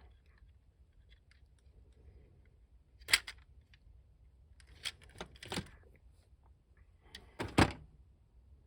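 Small hard plastic parts being handled and set down: a sharp click about three seconds in, a short run of clicks around five seconds, and a louder click near the end, with quiet between.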